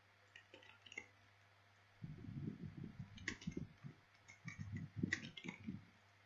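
Computer keyboard typing, faint: a few separate key clicks, then about two seconds in a quick run of keystrokes with dull thuds that lasts about four seconds.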